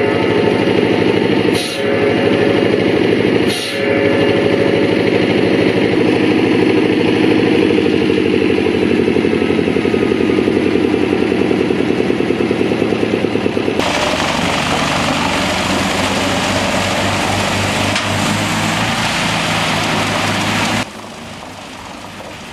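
Heavy wood-processing machinery running with an engine at a fast, even beat, broken by two brief dips early on. About two-thirds through, it switches abruptly to a harsher, hissing grind, and it drops to a quieter running sound near the end.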